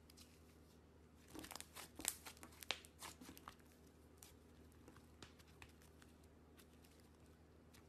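Green slime being stretched and folded by hand, giving a quick run of faint sticky crackles and pops a little over a second in, then a few scattered clicks.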